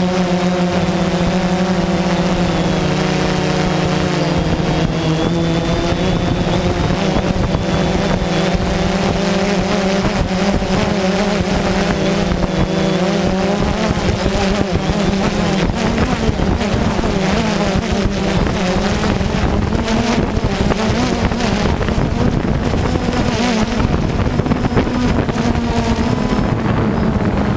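DJI Phantom 2 quadcopter's brushless motors and propellers buzzing steadily in flight, heard from the camera on board, with a rushing noise over it. The pitch of the buzz drifts and wavers as the drone manoeuvres, climbing a little near the end.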